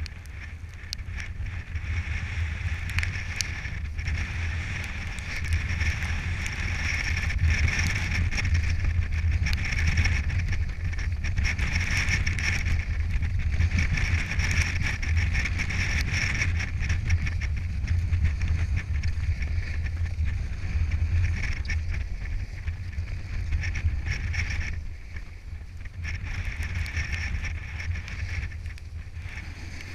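Snowboard scraping and carving over packed snow, the hiss swelling and easing with each turn about every two seconds, over a steady low rumble of wind on the microphone. The level dips briefly a little before the end.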